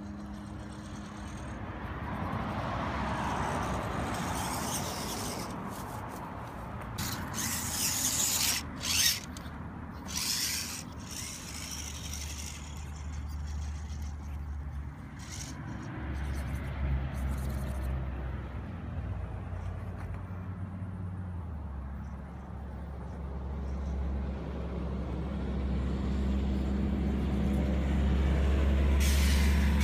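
Small electric 1/18-scale RC rock crawler, with an Xtreme 380X motor, crawling up rock. A low motor and drivetrain hum rises and falls in steps as the throttle changes. A cluster of sharp clicks and scrapes comes about seven to eleven seconds in, as the tyres and chassis grind on the stone.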